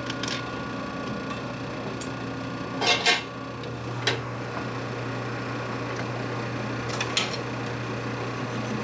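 Pieces of machined metal stock clinking and knocking as they are handled, a few sharp clinks with the loudest pair about three seconds in, over a steady low hum.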